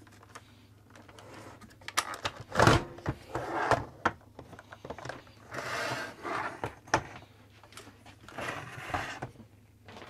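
Plastic parts of a Shark Navigator NV201 upright vacuum being handled and pulled apart: irregular clicks, knocks and plastic-on-plastic scraping in several short spells, with the vacuum's motor not running.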